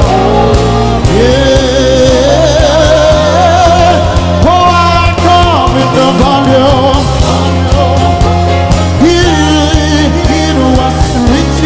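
Live worship music: a band with bass and drums playing under a voice singing long, wavering notes, with a high held note about five seconds in.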